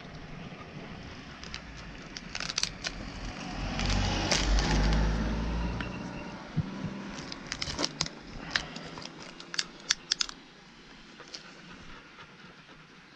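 Plastic bag crinkling, with sharp clicks and rustles as it is handled by hand. A low rumble swells and fades between about three and six seconds in.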